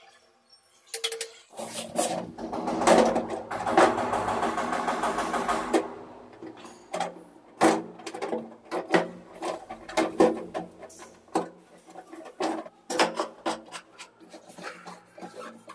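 A small electric drill motor runs for about four seconds. It is followed by a scatter of irregular knocks and clicks of hard plastic as a flush cistern is hung on its wall bracket and the flush pipe is fitted.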